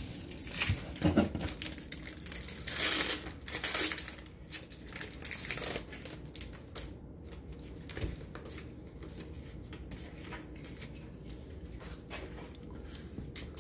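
Foil wrapper of a Pokémon booster pack crinkling and tearing open, in a few loud bursts over the first six seconds, then faint rustling and small clicks.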